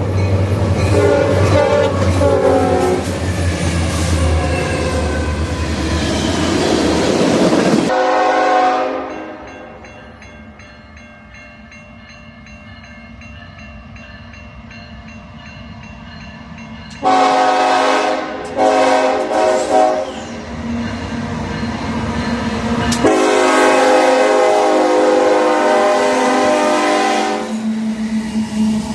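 Locomotive Nathan K5HLA five-chime air horn sounding in several cut-together clips: first a close, loud horn chord over the rumble of a passing train, then after a sudden cut a fainter steady horn chord, then loud blasts — a few short ones, then one long blast of about four seconds near the end.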